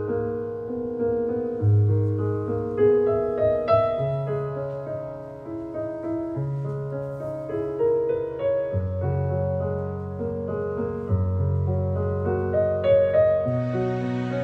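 Background piano music: slow chords over held bass notes.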